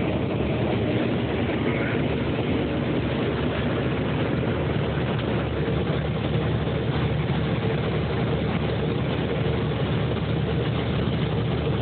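Case IH 2588 combine harvester running steadily at work in corn, a constant heavy diesel drone with machinery noise and no change in pitch or level.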